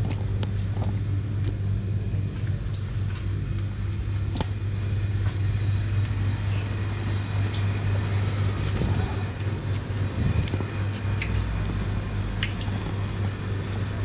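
Steady low hum of supermarket machinery, such as refrigeration or air conditioning, with a few faint scattered clicks and knocks.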